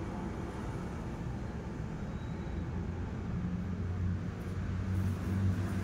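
A steady low engine hum, growing louder near the end.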